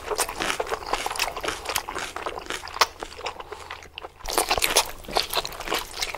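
Crunching and chewing of crisp food: dense, irregular crackling crunches with a brief lull about four seconds in.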